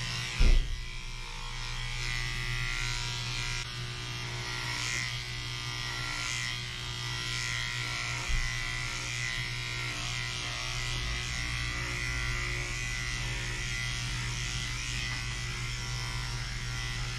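Cordless dog clipper fitted with a number 4 blade buzzing steadily as it shears through a doodle's thick curly coat. There is a brief loud thump about half a second in and a smaller one around eight seconds.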